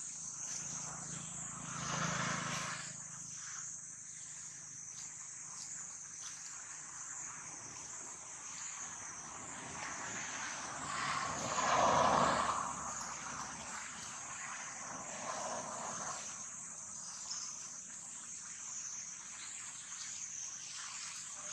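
Outdoor ambience with a steady high-pitched insect drone, and a louder swell of noise rising and fading about halfway through.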